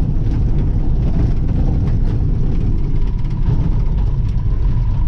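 1966 Ford F-250 pickup's engine running steadily as the truck drives through a snowy field, a deep, even sound with a faint steady whine joining about halfway through.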